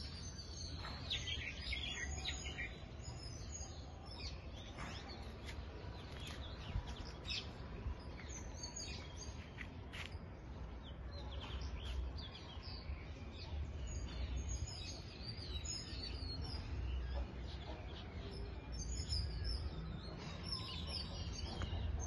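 Small birds chirping, many short high calls scattered throughout, over a steady low rumble.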